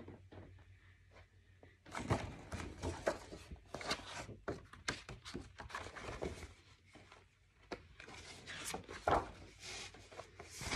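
A hardcover picture book being handled close to the microphone: pages turning and the covers and paper rubbing and tapping. The rustles and taps begin about two seconds in, after a short quiet stretch.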